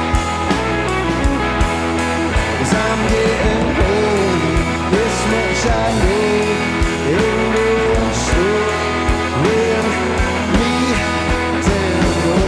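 Rock music: a band with drums and bass under a lead guitar playing a sliding, bending melody over a steady beat.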